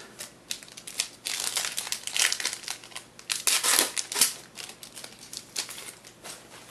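Trading card pack wrapper crinkling as it is torn open and handled, a dense run of crackly rustling, loudest in the middle and fainter toward the end.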